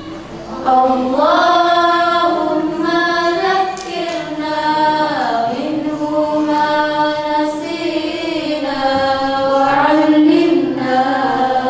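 A young woman's solo voice chanting in Arabic in the melodic Qur'an-recitation style. She holds long notes and slides through ornamented turns between them, with a brief breath about halfway through.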